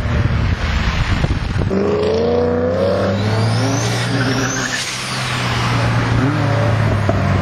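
Car driving at speed: a rushing engine and road noise for the first couple of seconds, then a steady engine drone, with a high whine rising twice in the middle.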